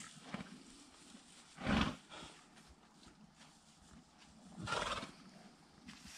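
A horse making two short, loud, breathy blasts about three seconds apart.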